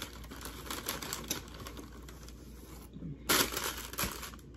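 Paper fast-food bag rustling and crinkling as it is handled and food is pulled out, with a louder crinkle a little over three seconds in.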